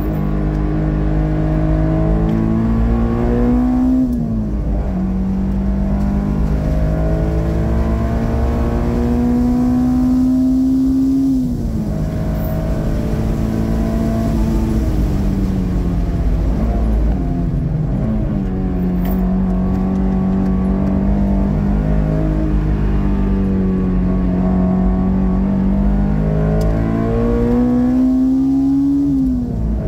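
Honda S2000's naturally aspirated four-cylinder engine heard from inside the cabin, pulling hard on track: its pitch climbs over several seconds under throttle and falls sharply about four times as the driver lifts off or changes gear, over a steady low road and wind rumble.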